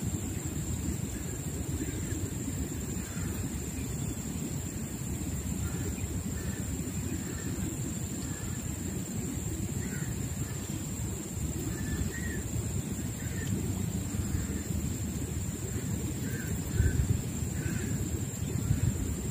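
Outdoor riverbank ambience: a steady low rumble with a thin steady high whine, and short faint bird calls scattered throughout. A short thump comes a little before the end.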